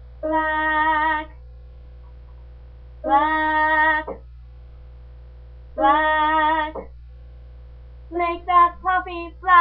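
A woman singing without accompaniment: three held notes of about a second each, with vibrato and pauses between them, then a quick run of short notes near the end. A steady low hum underlies it.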